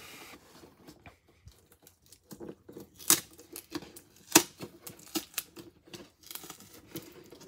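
Large cardboard shipping box being handled and opened by hand: scattered rustling, tearing and crinkling of cardboard and packing tape, with two louder sharp snaps about three seconds in and again a second and a half later.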